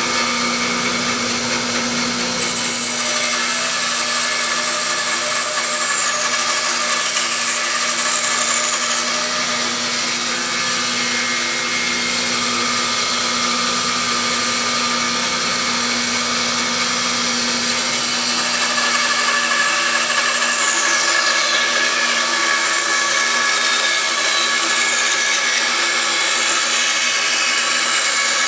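Band saw running and cutting through a wooden blank: a steady motor and blade hum under high-pitched sawing noise. Twice a high whine slides down in pitch.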